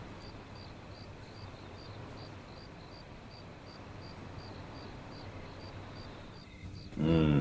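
A cricket chirping steadily about three times a second over a low background hiss. Near the end a man lets out a short, loud vocal groan of comfort while being massaged.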